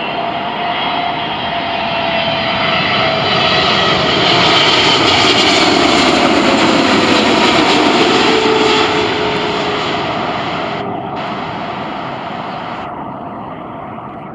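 Jet Airways Boeing 777-300 airliner passing low overhead on final approach with its landing gear down. The jet engines' rushing noise builds to a peak about five seconds in and then fades, with a whine that slides down in pitch as the aircraft goes past.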